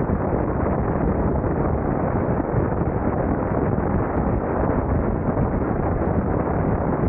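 Steady, muffled rush of wind over a camera mounted low on a BMW adventure motorcycle moving down a gravel road, mixed with the bike's road rumble.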